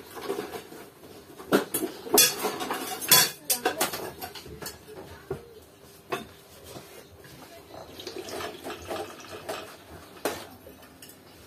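Spoon clinking and scraping against a plate as someone eats, a string of sharp clinks that is loudest about two to three seconds in, then lighter dish handling.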